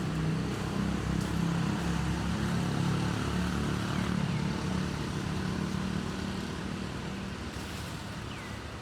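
A motor vehicle engine running with a low steady hum, fading gradually toward the end.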